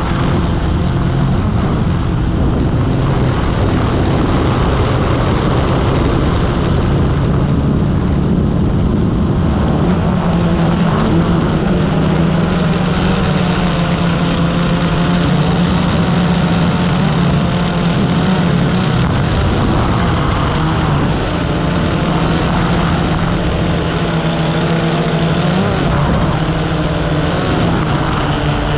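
A multirotor drone's motors and propellers buzzing steadily in flight, heard from the drone's own camera, mixed with rushing wind noise. The pitch wavers in the second half as the motors change speed.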